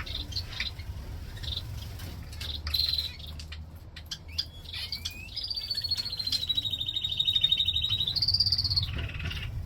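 Small aviary birds chirping, with one bird singing a long rapid trill from about five seconds in until about nine seconds, over a low steady rumble.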